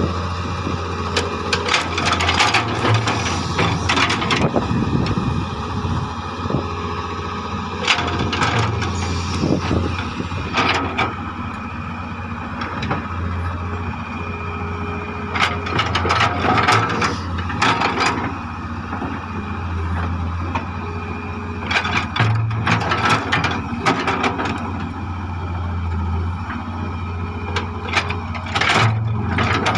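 Hitachi EX100 excavator's diesel engine running steadily under work, with loud clanks and knocks every few seconds.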